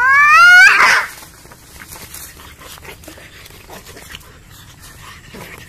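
Cat fight: one cat lets out a loud rising yowl that breaks into a harsh screech about a second in. Quieter scuffling and rustling follow as the two cats grapple.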